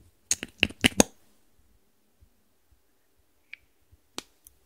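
Plastic cap of a small lip tint bottle being twisted open, giving a quick run of about five sharp clicks. A faint tick follows later, then a single click about four seconds in as the applicator touches the plastic tray.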